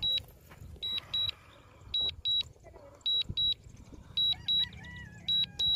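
Warning beeps from the DJI Mavic Mini's controller during automatic return-to-home: high double beeps repeating about once a second.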